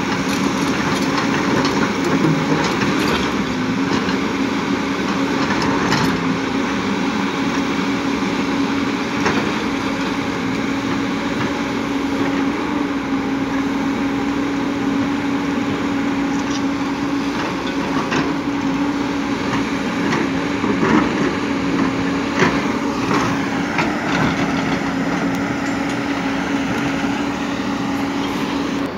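JCB crawler excavator's diesel engine running steadily under load as it digs, with a steady hum and a few short knocks of rock against the bucket.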